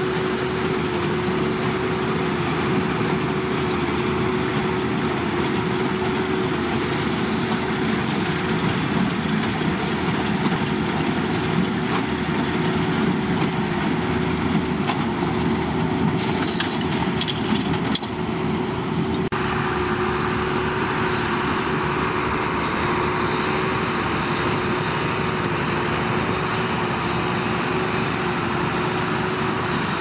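Tractor running steadily under load while it pulls and drives a Massey Ferguson 185 large square baler through straw, with a steady hum from the machinery throughout. A few clicks and knocks are heard around the middle.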